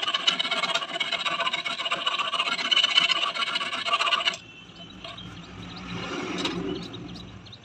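Rapid, continuous rasping and scraping on metal, with a ringing tone, while a motorcycle rear shock absorber is being worked on. It cuts off abruptly a little over halfway through, leaving a quiet low hum and a few faint clicks.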